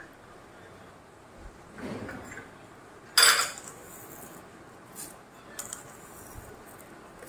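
Kitchen dishes and a spoon clinking as ingredients are handled, with one sharp clatter a little after three seconds in and a few lighter clicks after it.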